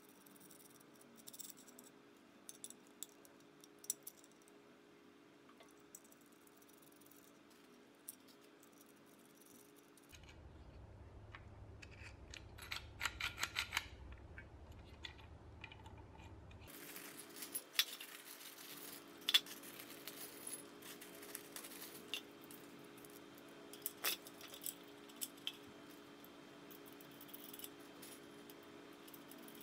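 Small metal parts clinking and clicking as steel bolts, nuts and mounting brackets are handled and fitted onto LED light bars: faint scattered taps, denser for a few seconds mid-way.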